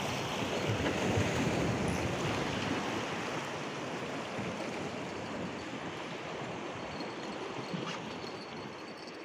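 Sea waves washing on the shore, a steady rushing that slowly fades.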